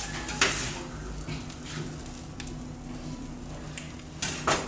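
Metal spatula and knife scraping and clanking on a steel flat-top griddle as the burrito filling is chopped and gathered, over a faint sizzle. A sharp clank comes about half a second in, and two more, the loudest, near the end.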